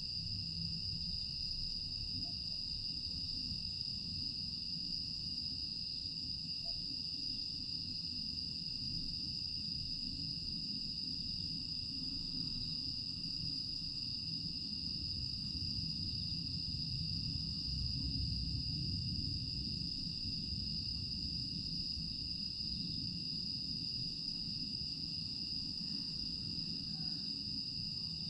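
Crickets and other grass insects chirring continuously in a steady, high-pitched drone, over a low, even rumble of background noise.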